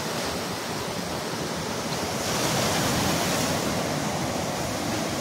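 Sea surf breaking and washing over shore boulders, a steady rush of water that swells louder about two seconds in.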